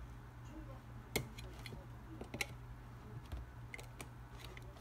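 Snap-off utility knife cutting the seal of a small cardboard box: a string of short, sharp clicks and ticks as the blade catches and slices, the loudest about a second in. A steady low hum runs underneath.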